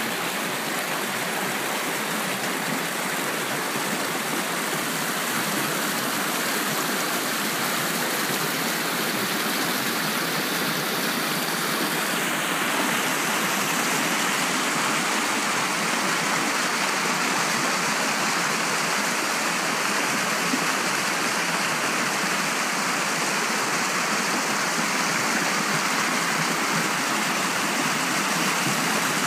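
Small woodland brook rushing and splashing over a rocky cascade: a steady, unbroken rush of water that grows a little louder about halfway through.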